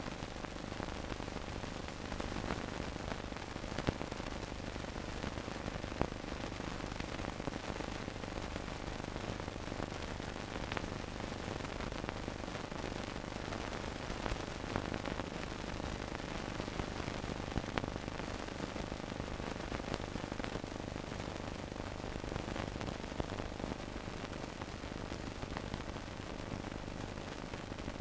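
Surface noise of an old film soundtrack with no programme sound: steady hiss and crackle with scattered clicks and pops over a low hum.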